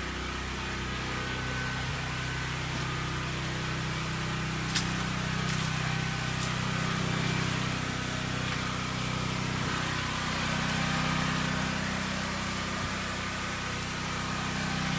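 An engine running steadily at idle, a constant low hum, with one sharp click about five seconds in.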